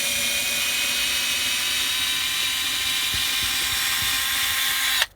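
Cordless power screwdriver running steadily at a high pitch, backing out a long screw, then stopping abruptly about five seconds in.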